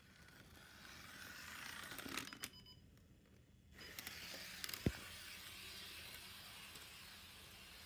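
Model train locomotive running along the track, a faint steady whirr of its small motor and wheels that drops away for about a second partway through, with a few clicks and one low thump about five seconds in.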